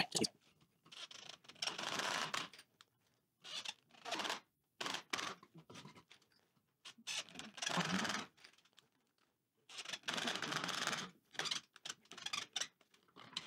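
Scraping and rasping in short bursts of about a second each, with scattered light clicks and knocks between them, from handwork on timber braces.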